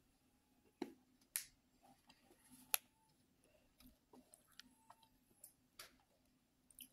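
Near silence with a handful of faint, sharp clicks and crackles, the small sounds of someone chewing a chalky, conversation-heart-like candy and handling a plastic snack bag.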